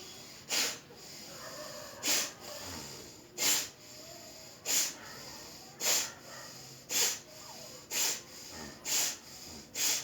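Forceful bellows breathing (Surya Bhastrika pranayama) through the right nostril with the left closed: about nine sharp, loud nasal breaths, roughly one a second and getting slightly quicker, with softer breath sounds between them.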